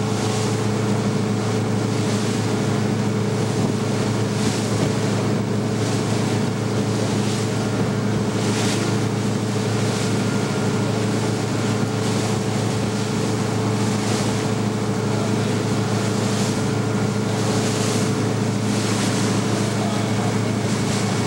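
A motorboat under way at steady speed: its engine runs with an even low hum under the constant rush of its wake and wind on the microphone. The water noise swells in surges every few seconds.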